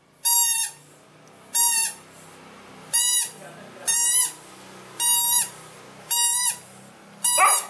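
Squeaky toy ball giving a series of seven short, high, even-pitched tweeting squeaks, about one a second.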